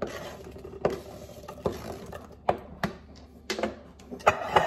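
Diced apple tipped off a plastic cutting board into a glass baking dish: about seven sharp, irregular knocks and taps as the board and apple pieces strike the dish.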